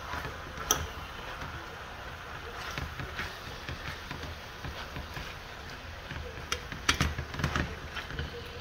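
Spoon stirring chicken curry in a metal pot, knocking and scraping against the pot in short clicks, with a cluster around seven seconds in, over the steady sizzle of the simmering pot.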